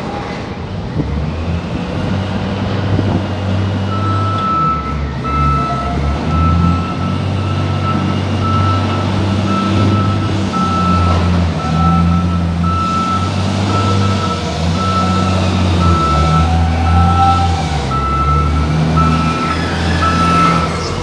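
Linde reach stacker's diesel engine running and changing pitch as it manoeuvres. From about four seconds in, its reversing alarm sounds a steady high beep a little more than once a second.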